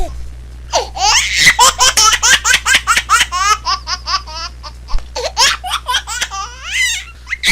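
Cartoon laughter sound effect from the Yakky Doodle and Chopper cartoon: a rapid run of high, squeaky laugh syllables, several a second, starting about a second in and trailing off near the end, over a steady low hum.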